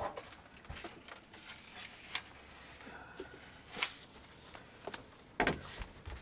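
Footsteps and rustling among storm debris: scattered light crunches and knocks, with louder ones about four and five and a half seconds in.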